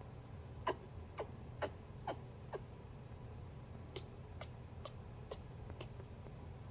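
Cockatoo's beak clicking: two runs of about five short, sharp ticks, roughly two a second, the first run starting under a second in and the second about four seconds in.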